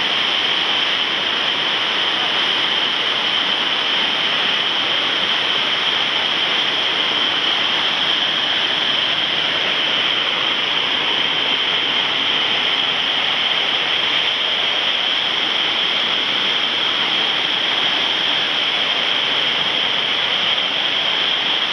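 Whitewater pouring over a river weir and churning in the stopper wave below it: a loud, steady rush of water that never lets up.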